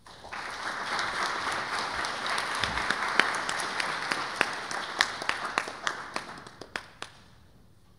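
Audience applauding. The applause starts right away, holds for several seconds, then thins to scattered single claps and dies away near the end.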